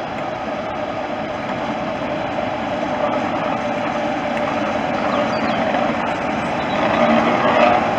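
Class 47 diesel locomotive D1755 running slowly past, its Sulzer twin-bank diesel engine working steadily. It gets louder as the locomotive draws alongside and is loudest near the end.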